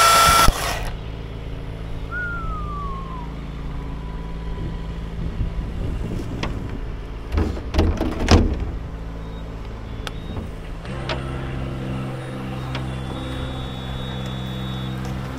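A power saw cuts off about half a second in, leaving an engine idling steadily. A cluster of knocks comes around the middle. At about eleven seconds the engine note steps up louder and fuller, as under more load.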